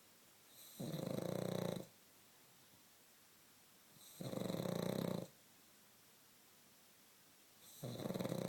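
Pug snoring in its sleep: three rough, fluttering snores, each about a second long, coming roughly every three and a half seconds.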